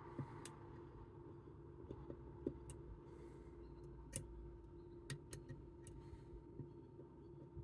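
Faint, irregular small metallic clicks and ticks of picking tools working inside a Chubb Detector lever lock while it is being picked, over a steady faint hum.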